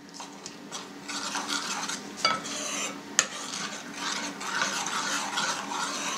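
A metal spoon stirs salt into a liquid yeast starter in a bowl, scraping and clinking steadily against the bowl, with a couple of sharper taps.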